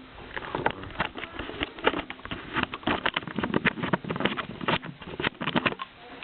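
Irregular clicks, knocks and rattles of a new Dell V305w printer's plastic parts being handled, with lids and panels lifted and moved.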